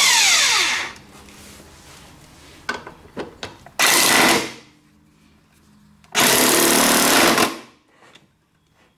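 Cordless impact wrench hammering in three bursts as it drives a gear puller's forcing screw against a badly rusted, stubborn lawnmower blade adapter. There is a burst of about a second at the start, a short one about four seconds in, and a longer one of about a second and a half about six seconds in, with a few light clicks of the tool being handled between them.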